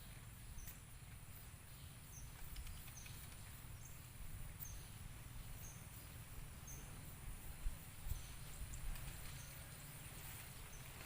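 Insect ambience: a steady high-pitched insect drone with short high chirps about once a second, over a low rumble and one brief soft thump about two-thirds of the way through.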